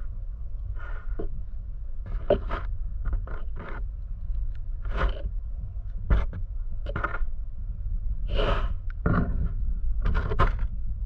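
Shallow seawater surging over a sandy bottom, heard muffled from an underwater camera: a steady low rumble with irregular short hissing swooshes as the water moves.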